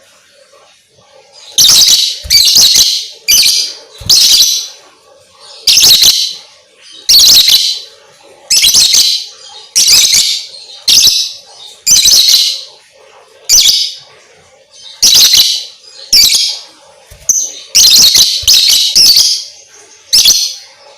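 Lovebird calling in a loud series of short, shrill, harsh chirps, roughly one a second and some in quick pairs. This is the kind of lovebird chatter played as a lure to set other lovebirds singing.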